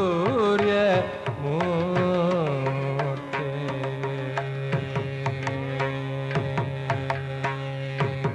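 Carnatic-style singing of a Sanskrit hymn to Surya with tabla: the singer glides through the word "surya" in the first two or three seconds, then a long steady note is held over regular tabla strokes.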